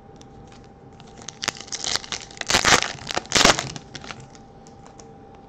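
A foil pack of 2018 Topps Chrome baseball cards being torn open by hand, its wrapper crinkling. A run of rips and crinkles starts about a second in, with the two loudest near the middle, then it goes quiet.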